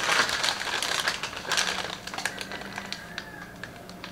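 Thin plastic shopping bag crinkling as it is gripped and handled: crackling bursts at the start and again about a second and a half in, then sparser crackles.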